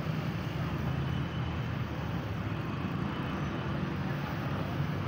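Massey Ferguson tractor's diesel engine idling steadily.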